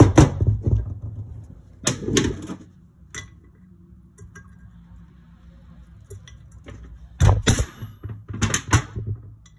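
Sharp metal knocks and clatter from handling and working the aluminium cylinder head of a Yamaha YZ250F engine on a workbench while its valve springs and retainers are removed. They come in bursts near the start, about two seconds in, and again in several knocks near the end, over a steady low hum.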